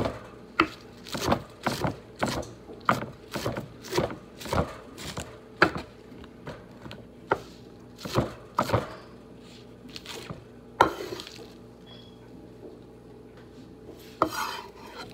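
Chef's knife chopping fresh spinach on a wooden cutting board: sharp knocks of the blade on the board, about two a second, slowing and thinning out after the first nine seconds. Near the end there is a brief scraping rustle as the chopped leaves are swept up off the board.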